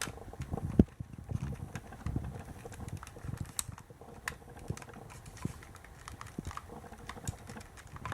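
Irregular light clicks and taps of a plastic toy model being handled, with one sharper click just under a second in.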